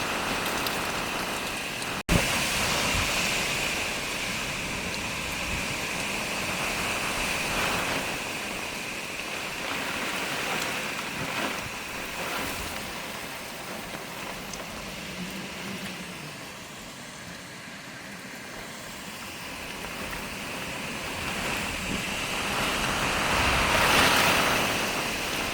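Hurricane wind and rain: a steady rushing noise that swells and eases in gusts, loudest near the end, with a sudden brief cut-out about two seconds in.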